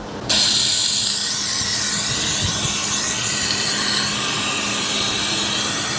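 A coolant vacuum-fill tool hissing steadily as it pulls a vacuum on a Porsche 911 Turbo S cooling system, drawing the air out before the system is checked for leaks and filled. The hiss starts abruptly just after the beginning and stays even.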